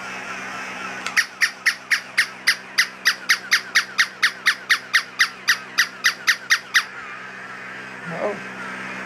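Battery-powered toy dog barking electronically: a rapid, even run of short high yips, about four a second, lasting nearly six seconds.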